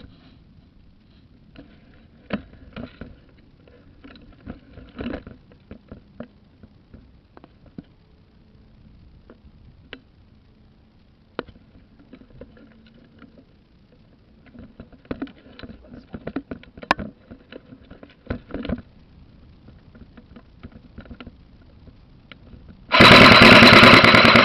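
Scattered sharp clicks and knocks with light rustling. Near the end comes a loud, dense burst lasting about a second and a half, an airsoft gun fired in a full-auto string close to the microphone.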